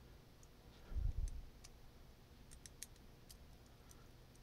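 A dull low thump about a second in, then a handful of faint, quick clicks, from hands handling a Microsoft Band 2 smartwatch and its small internal parts during repair.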